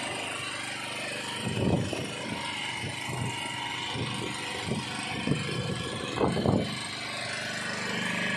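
Fishing boat's engine running steadily, with a few dull thumps about two seconds in and a quick cluster of them near six and a half seconds.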